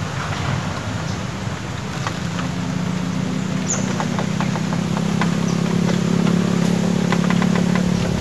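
A motor vehicle's engine humming at a steady pitch, coming in about two seconds in and slowly growing louder, with a few faint clicks over it.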